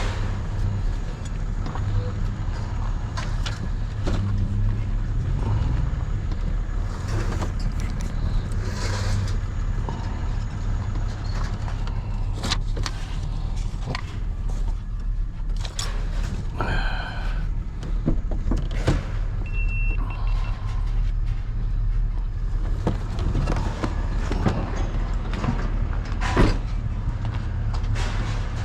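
Truck engine running steadily at low speed while reversing into place, with scattered clanks and knocks and a brief squeal about two-thirds of the way through.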